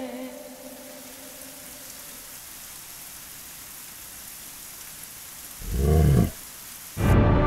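A steady hiss, then a single short lion roar about six seconds in, lasting under a second. Music starts just before the end.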